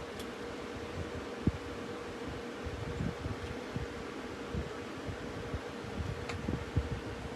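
Steady fan-like hum with a constant low tone, broken by scattered light knocks and taps of small wooden pieces being handled on the bench, the sharpest about a second and a half in and near the end.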